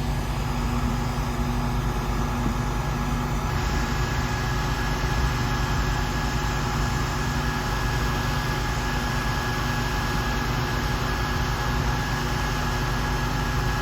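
Steinel HG 2620E electric heat gun running steadily, its fan blowing with a faint motor whine.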